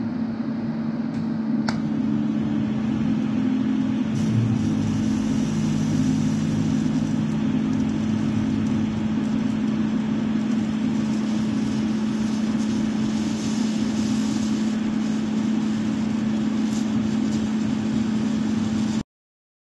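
TIG welding arc fusion-welding the seams of a steel billet stack with no filler: a steady hiss and buzz over a constant hum. The arc catches with a sharp click about two seconds in, and the sound cuts off abruptly near the end.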